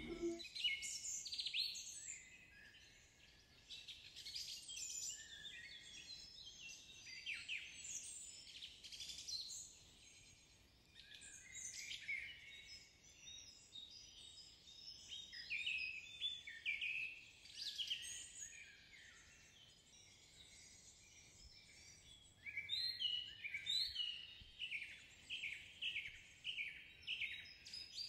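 Birds chirping and singing, faint: a stream of short high chirps and trills, with a run of quick repeated notes, about two a second, in the last five seconds.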